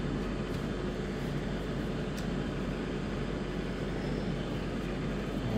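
Steady hum and hiss of an air conditioner running in the room, with a couple of faint soft ticks as playing cards are set down on a playmat.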